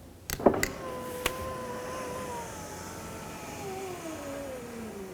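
Audi A4 power window switch clicking, then the door's window regulator motor running the glass up on the one-touch automatic function, which has just been recalibrated. The motor whine drops slowly in pitch as it goes.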